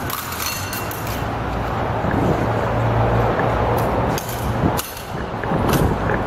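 Steel rapier and dagger blades clashing in a handful of sharp clicks, one near the start ringing briefly, over a steady background rumble.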